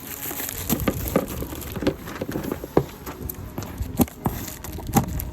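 Cardboard box and packaging being handled and opened: an irregular run of taps, knocks and crackles, with a few sharper knocks.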